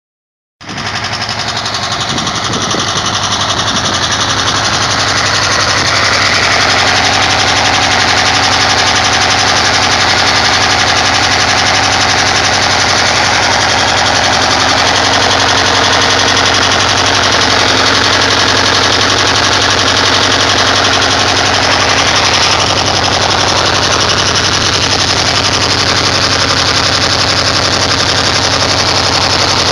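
1977 Volkswagen Westfalia camper's air-cooled flat-four engine running steadily at about 1500 rpm.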